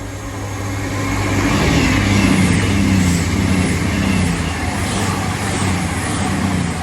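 Diesel passenger train passing close at speed on a rising gradient. Its engines hum under the rush and rumble of wheels on the rails; the sound builds over the first two seconds and eases near the end.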